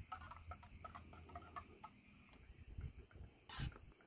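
Faint handling sounds of camp cookware at a portable gas stove: a run of small clicks and ticks, then one sharper knock near the end.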